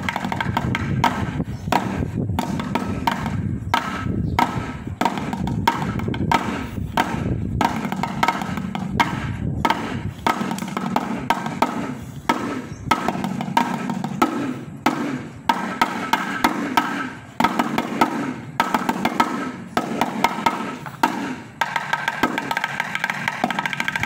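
Bucket drumming: sticks beating fast, busy patterns on a set of metal paint cans and a plastic bucket, several strikes a second with a metallic ring.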